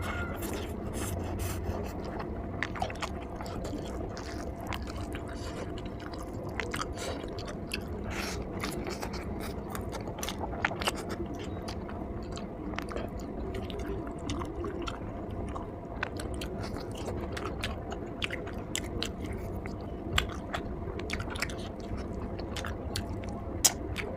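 Close-up eating sounds: chewing with scattered wet clicks, bites and scrapes, over a faint steady hum.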